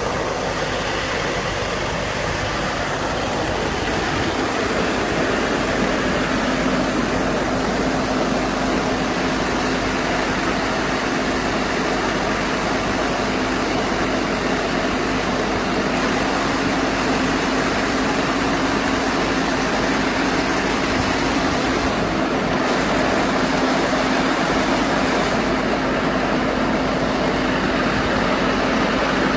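Stationary baler-wrapper running steadily: a dense, continuous mechanical noise with a steady hum, growing slightly louder a few seconds in.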